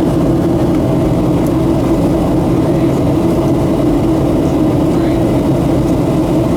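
Steady in-flight cabin drone inside a Boeing 737-700: the hum of its CFM56 turbofan engines mixed with airflow noise, even in level with no change.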